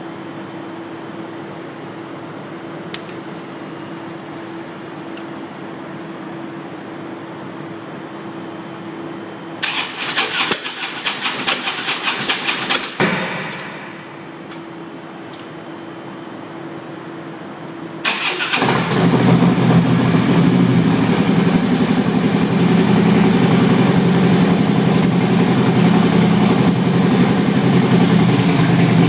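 2013 Harley-Davidson Road Glide's V-twin: the starter cranks it for about three seconds without it firing and stops. After a pause a second crank catches almost at once, and the engine settles into a steady idle. This first-try no-start happens at random with a fully charged battery.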